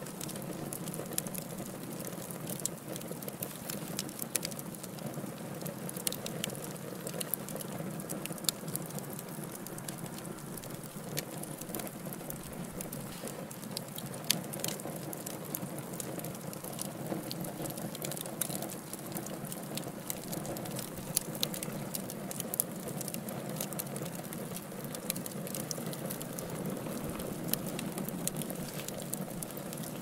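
Wood fire burning in a fireplace, crackling steadily with many sharp pops scattered throughout.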